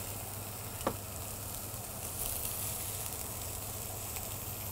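Halibut fillets sizzling in oil in a frying pan and a cast grill pan, a steady hiss. A single short knock about a second in.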